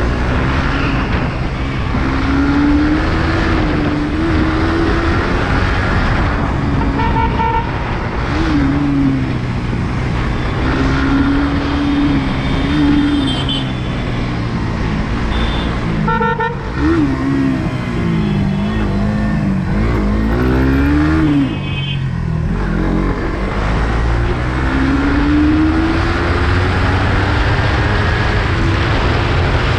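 Suzuki sport motorcycle engine revving up and easing off again and again as it accelerates through the gears, heard from the rider's seat under a steady haze of road and wind noise. A vehicle horn beeps a few times around the middle.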